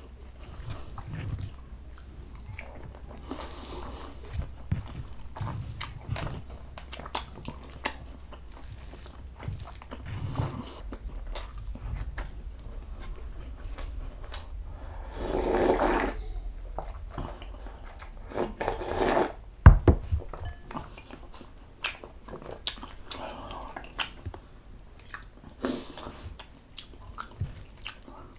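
A person chewing and biting mouthfuls of beef and bone marrow close to the microphone, with many small wet clicks of the mouth. A louder rush lasts about a second near the middle, and a single sharp knock comes about twenty seconds in.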